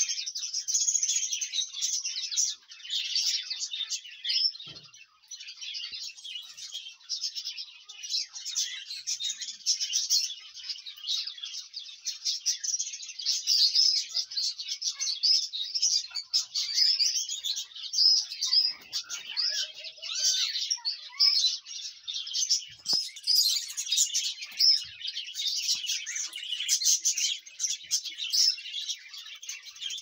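A flock of small caged birds chirping and twittering continuously, many high-pitched calls overlapping into a dense chatter.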